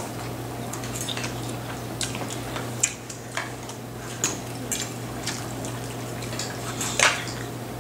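People eating at a table: wet chewing and lip-smacking, with a few scattered clicks of forks against plates, over a steady low hum.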